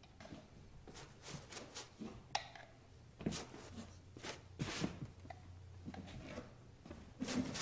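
Palette knife scraping and spreading paint across a canvas: a run of short, irregular scraping swishes.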